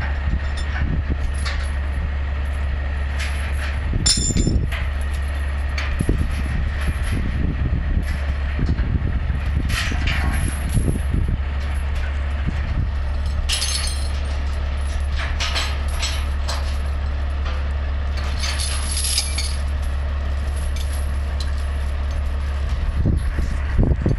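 Heavy diesel truck engine idling as a steady low rumble, with scattered clinks and short hisses.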